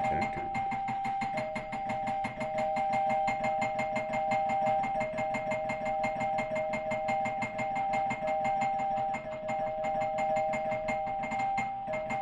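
Doorbell ringing without a break: two steady high tones sounding together with a fast, even flutter, as someone at the door keeps at the button.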